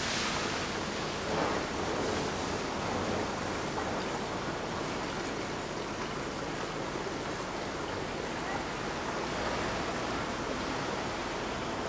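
Steady outdoor background hiss with no distinct events, swelling a little in the first few seconds.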